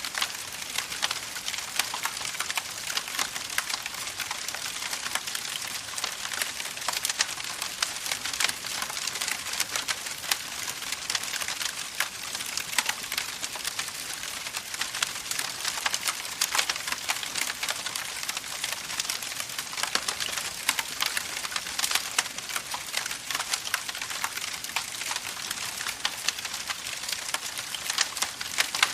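Campfire crackling steadily, with a dense run of small pops and snaps over a soft hiss.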